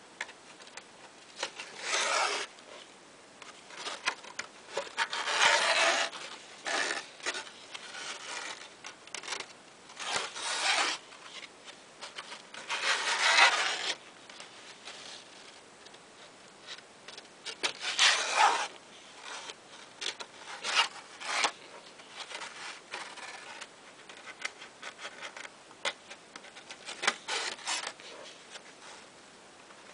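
Stiff card pages of a pop-up book being turned and handled: paper sliding and rustling in swishes of about a second, every few seconds, with small clicks and taps of the card in between.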